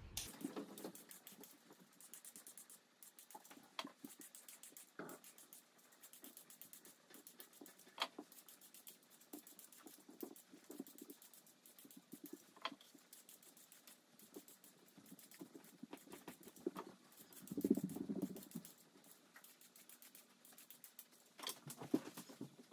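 Vegetable peeler scraping along carrots in quick, faint, repeated strokes, with a few louder knocks now and then.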